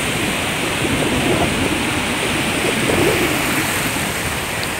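Sea surf washing onto a sandy beach: a steady, loud rush of breaking waves.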